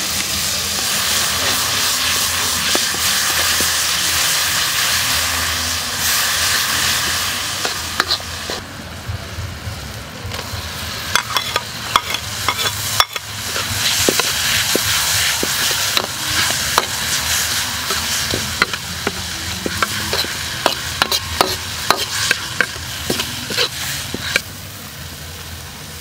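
Food sizzling in a hot wok over a wood fire, with a steady loud hiss at first. From about a third of the way in, a metal ladle scrapes and clacks against the wok in many sharp clinks as shredded carrot and tomato are stir-fried.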